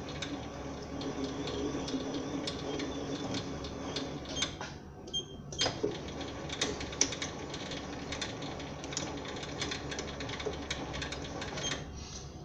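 SIEG SC4 mini lathe running a threading pass on a brass workpiece: a steady motor and gear-train hum with many sharp ticks and clicks. The sound dips briefly about five seconds in, and the lathe stops near the end.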